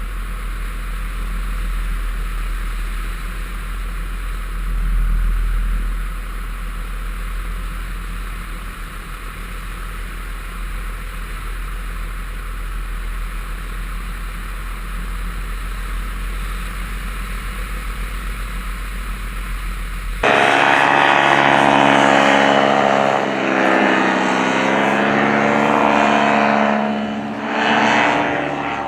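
Paramotor engine and propeller running in flight, at first as a low rumble. About two-thirds of the way through, it cuts suddenly to a louder, closer engine note whose pitch wavers up and down.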